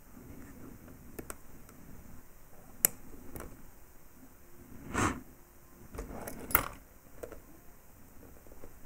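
Scattered small clicks and taps of tools and small metal parts being handled while building a coil on a vape tank's build deck, with two sharper clicks and a short brushing noise between them.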